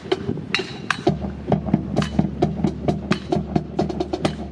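Rifle drill team performing in time: sharp rhythmic clicks and slaps of rifles being handled, about four a second, with music of sustained low tones coming in about a second in.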